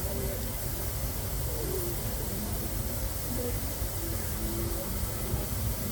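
Steady low rumble with an even hiss, typical of a train standing at a station platform.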